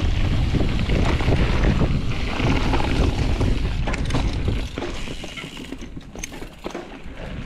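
Mountain bike descending at speed: wind buffeting the microphone and tyre rumble. About two-thirds of the way through it drops to quieter rolling, with scattered clicks and rattles from the bike on the trail.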